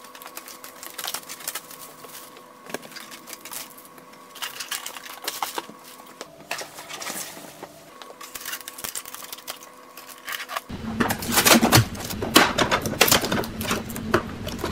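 Plastic packaging wrap crinkling and rustling as it is pulled off an inkjet printer, with irregular crackles throughout. It gets louder in the last few seconds as blue packing tape is peeled from the printer's body.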